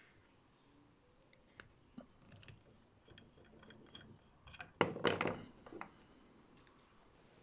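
Faint clicks and scrapes of a bit being changed by hand in the collet of a stopped CNC router spindle, with a louder cluster of clicks about five seconds in.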